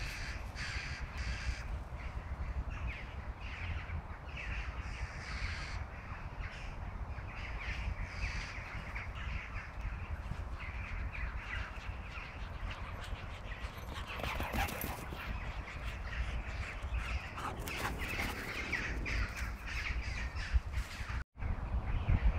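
Wind rumbling on the microphone, with many short bird calls scattered throughout.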